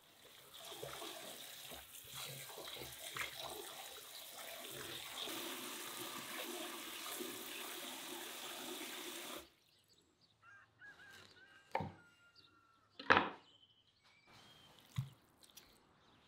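Tap water pouring into a water-filled bowl in a sink, splashing steadily, then shut off abruptly about nine seconds in. After it come a few sharp knocks, the loudest about thirteen seconds in.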